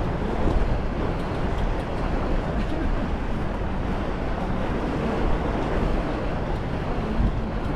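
Steady noise of a passenger ferry under way: a low engine rumble mixed with wind and water rushing past.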